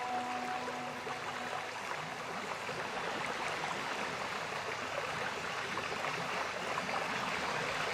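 Steady rushing water sound like a stream, part of a relaxation soundtrack, with a last low music note dying away about a second and a half in.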